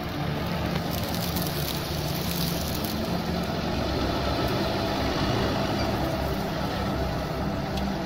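New Holland T7.235 tractor's six-cylinder diesel engine running steadily as the tractor and its plough come close, loudest a little past the middle.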